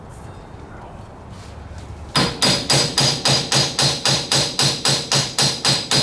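Ball-peen hammer rapidly tapping the steel hub and axle end of a Can-Am Defender's rear wheel, about four to five light blows a second with a metallic ring, starting about two seconds in. The tapping is working the hub loose off the axle splines.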